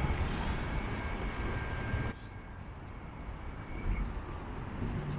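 City street ambience: a steady low rumble of traffic and outdoor noise with a few faint steady tones. About two seconds in, it cuts abruptly to a quieter, steady background hum.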